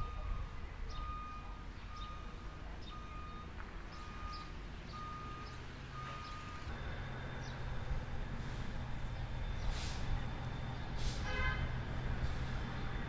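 A truck's reversing alarm beeping steadily, stopping about six and a half seconds in. After that a truck's diesel engine runs louder, with a few short hisses.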